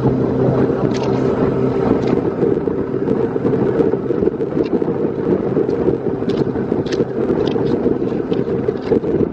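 Boat running underway, its engine drone under heavy wind buffeting on the microphone, with a few light knocks.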